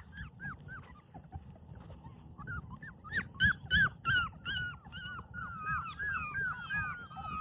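Four-week-old Labrador puppies whimpering: a run of short, high, squeaky cries, several a second, faint at first and louder from about two and a half seconds in.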